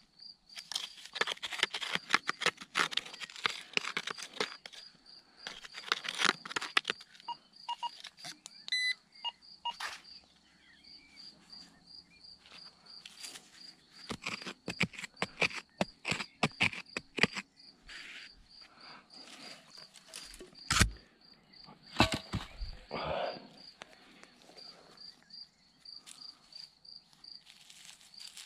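Gloved hands scraping and digging through loose soil and small stones, many short scratches and clicks, with two sharper knocks about two-thirds of the way through. A faint, steady, high pulsing chirp runs underneath.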